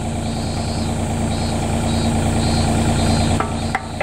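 Mini hydraulic excavator's engine idling steadily, with two sharp clicks near the end.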